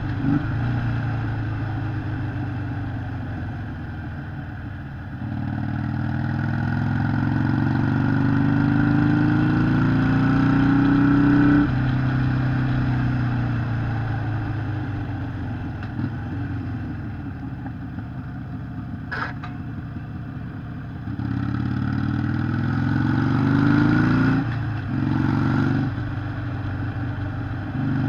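Harley-Davidson Sportster 883 SuperLow's air-cooled V-twin running under load. Its note climbs steadily as it accelerates and drops off suddenly when the throttle closes, twice, with shorter surges near the end. A single sharp click comes a little after the middle.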